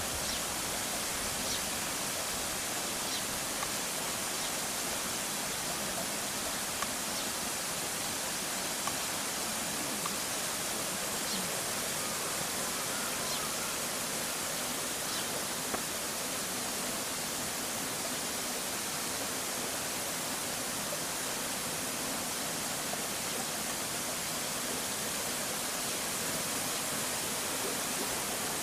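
Steady, even hiss of noise with a few faint short ticks scattered through it.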